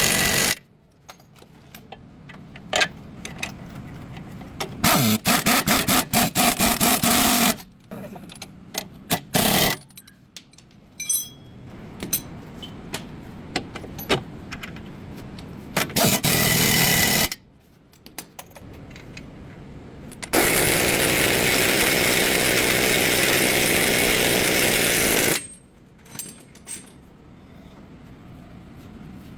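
A power tool run in several bursts over steady garage background noise. One burst, at about five to seven and a half seconds in, has a rapid rattling hammer, and the longest runs steadily for about five seconds near the end.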